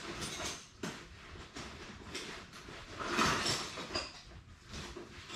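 Tools being rummaged through: irregular metallic clinks and knocks, with a louder scraping clatter about three seconds in, as a hammer is fetched from the tool storage.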